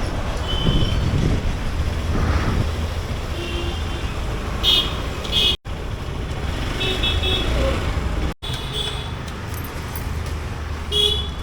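Road traffic with engines running and repeated short vehicle horn toots; the sound cuts out twice for an instant.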